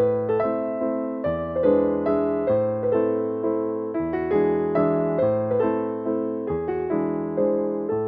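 Background piano music: a gentle melody of plucked-sounding, decaying notes over bass chords that change about every second and a half.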